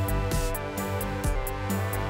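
Background music with a steady beat: regular drum hits under sustained held notes.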